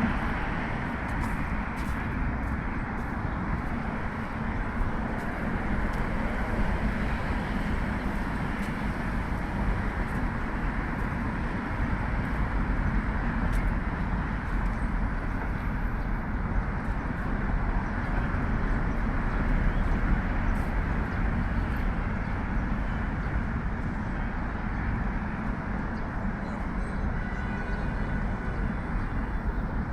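Continuous road traffic noise from a city ring road: a steady rumble and hiss of many vehicles with no single pass standing out.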